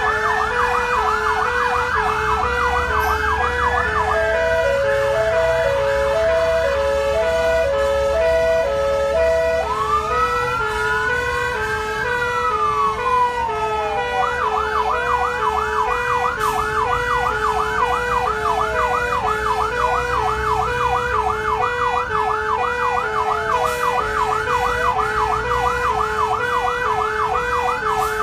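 Several fire engine sirens sounding together, heard from inside a fire engine's cab: a fast electronic yelp, a steady alternating hi-lo two-tone, and for a few seconds in the middle slower rising and falling wails. The truck's engine rumbles low underneath.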